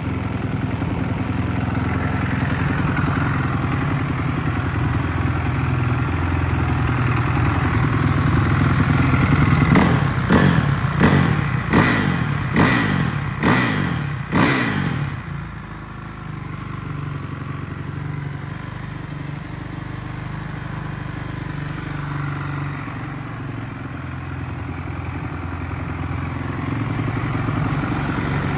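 A 2017 Kawasaki KX450 single-cylinder four-stroke, fitted with an Akrapovic titanium full exhaust system, running on its stand. The engine builds steadily for about ten seconds, then takes a run of six sharp throttle blips, about one a second. After the blips it drops back to a quieter steady idle.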